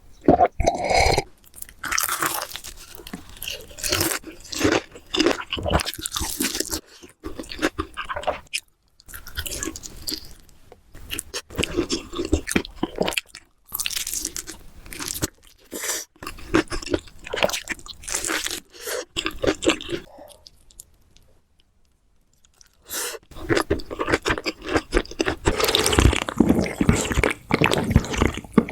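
Close-up crunching and chewing of crispy fried chicken, bite after bite of crackling crust. The crunching stops for about two seconds about two-thirds of the way through, then resumes more densely.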